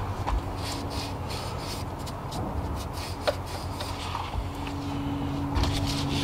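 A rag rubbing around inside the open hose neck of the Mercedes M272 engine's thermostat housing, wiping out dirt and sand in a series of short scrubbing strokes, mostly in the first couple of seconds and again near the end.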